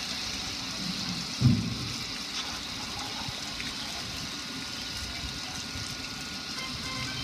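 Water gushing steadily over a gas grill's lid and control panel and splashing onto patio tiles, with one brief low thump about a second and a half in.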